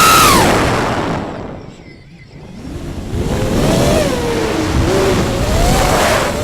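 Electric motor whine of an FPV aircraft. The pitch is high at first, then falls and nearly dies away about two seconds in as the throttle comes off. It returns at a lower pitch that rises and falls with the throttle.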